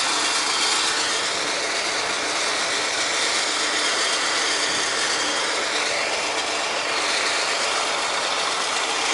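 Steady rattling clatter of machinery running, a rough even noise with no distinct tone.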